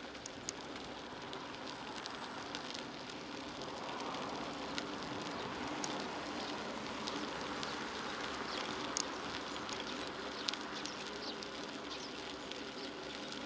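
Bicycle rolling along an asphalt path: steady tyre and wind noise with scattered sharp clicks and rattles from the bike. A brief high whistle sounds about two seconds in.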